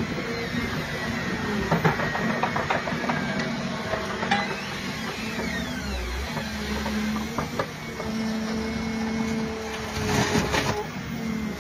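Excavator's engine and hydraulics running steadily as its stump shear works over a tree stump, with scattered knocks and cracks and a louder cluster of them about ten seconds in as the jaws come down on the stump.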